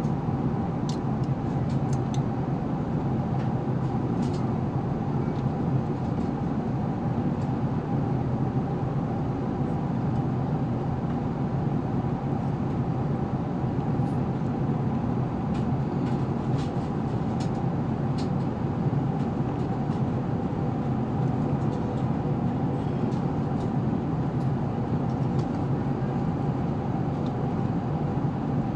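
Airbus A380 cabin noise at cruise altitude, heard inside the passenger cabin: an even, steady rush of engines and airflow with a faint steady hum over it.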